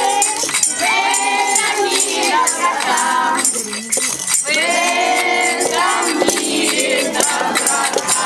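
A group of children and adults singing a song together, with light rattling percussion shaken along with it.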